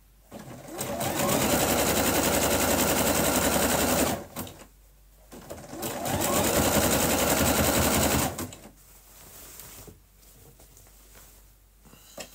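Bernette electric sewing machine sewing a zigzag stitch along a raw fabric edge to keep it from fraying. It runs in two spells of about three to four seconds each, speeding up at the start of each, with a short stop between, and halts about eight seconds in.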